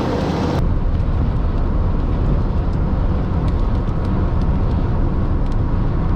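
Loud, steady low rumble of wind and road noise from a storm-chase vehicle, with faint scattered ticks. The higher hiss drops away about half a second in.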